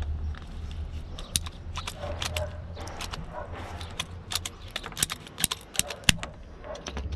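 Ratchet pipe cutter clicking as it is squeezed shut around green PP-R polypropylene water pipe: an uneven run of sharp clicks, the loudest about five and six seconds in, over a low steady rumble.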